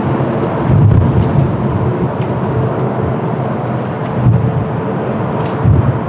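Jet airliner engines running on approach, a steady loud rush, with gusts of strong wind buffeting the microphone about a second in and near the end.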